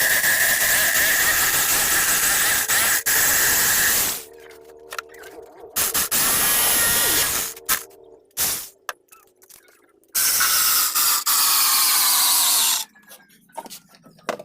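A power tool runs in two long, loud bursts with a high squeal. The first lasts about four seconds, the second starts about ten seconds in and lasts about three seconds with its pitch slowly falling. Quieter scraping and clicks come between the bursts.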